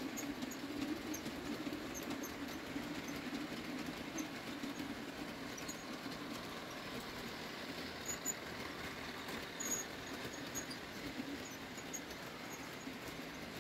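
OO gauge model freight train running past on the layout: a steady whirring hum from the locomotive's motor and running gear, with scattered faint clicks of wheels over the track.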